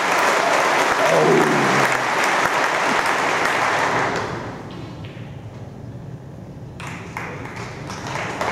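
Audience applauding, with one voice calling out about a second in; the applause dies away about four seconds in. A few light sharp clicks follow near the end.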